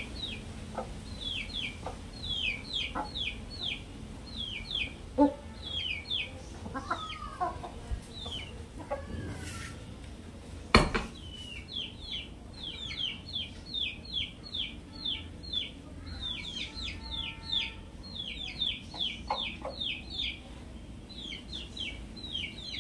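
Chickens peeping: a near-continuous run of short, high peeps that fall in pitch, several a second, with a few lower calls mixed in. A sharp knock about five seconds in, and a louder one about eleven seconds in.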